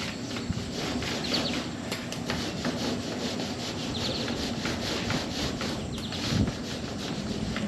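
Foam paint roller rolling primer onto a car body panel in repeated back-and-forth rubbing strokes.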